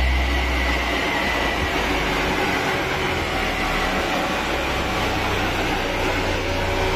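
Tuned 1996 Volvo 850R's turbocharged inline five-cylinder running steadily on a rolling-road dyno, without a rev sweep, mixed with the steady rush of the dyno's cooling fan. A high whine fades out in the first second.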